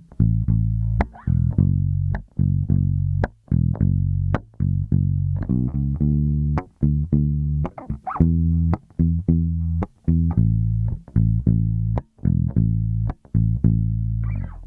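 A 2011 Gibson Les Paul Standard electric bass played unaccompanied: a line of plucked notes, some short and some held, with brief stops between phrases.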